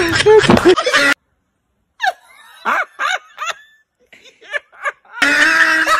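A man laughing in short, high, falling laughs, starting about two seconds in and growing louder near the end. The earlier sound cuts off abruptly about a second in, leaving a brief silence before the laughter.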